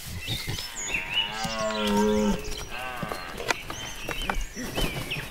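Animal sound effects: one long, low animal call lasting about a second and a half, with birds chirping around it.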